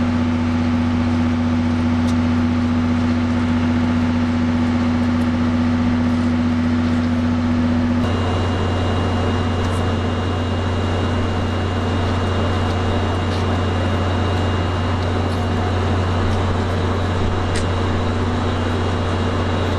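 Steady machinery hum with several constant tones over a noisy rush, typical of railway equipment running. About eight seconds in the sound changes abruptly: one strong low tone stops and a pair of thin high whines sets in.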